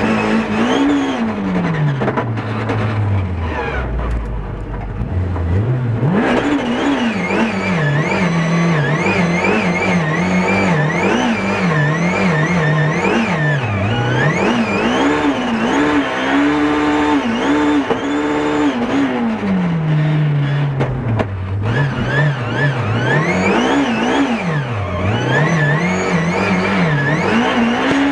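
BMW E36 Compact F2000 rally car's engine, heard from inside the cabin, revving hard with the revs climbing and dropping back again and again. About four seconds in the revs fall low for a couple of seconds, then climb hard again.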